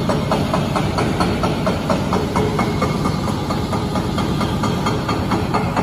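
Excavator-mounted rock breakers hammering at compacted glacial till in rapid, even blows, several a second, over the low, steady running of the excavators' diesel engines.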